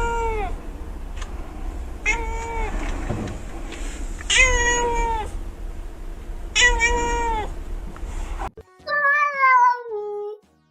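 Domestic cat meowing, four short meows about two seconds apart. Near the end comes a longer meow that falls in pitch.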